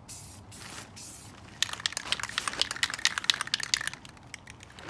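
Aerosol spray-paint can hissing in a few short bursts, then, about a second and a half in, the can shaken hard so its mixing ball rattles rapidly for a couple of seconds.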